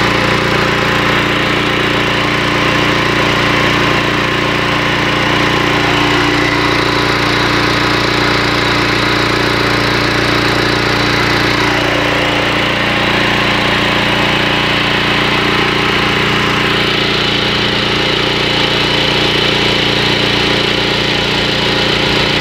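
13 HP petrol engine of an industrial pressure washer running steadily at constant speed, driving the pump on a test run.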